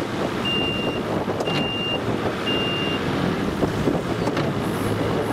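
Three Evinrude 300 V6 two-stroke outboard motors running, a steady noisy hum, while a high electronic beep sounds three times, about once a second, in the first three seconds.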